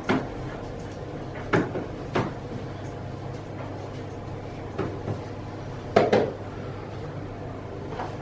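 Kitchen clatter: cupboard doors and dishes knocking, about seven sharp knocks, some in quick pairs, over a steady low hum.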